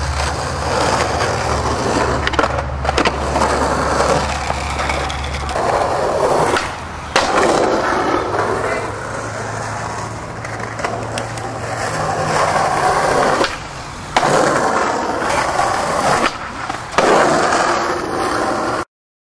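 Skateboard wheels rolling on rough concrete and asphalt, with sharp clacks of the board now and then. The rolling sound changes abruptly several times and cuts off near the end.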